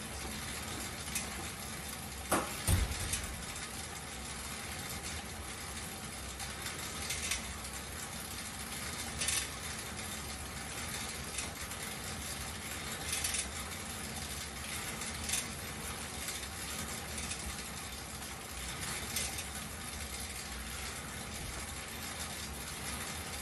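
Fan-wheel air exercise bike being pedaled: a steady whir from the spinning fan and drive, with occasional sharp clicks and clinks from the mechanism, the loudest pair about two and a half seconds in.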